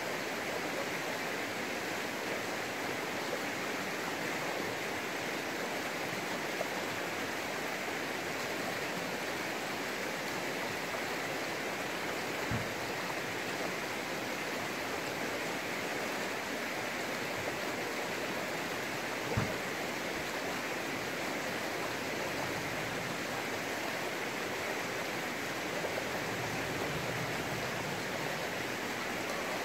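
Steady rushing noise with no pitch to it, broken by two faint short thumps about twelve and nineteen seconds in.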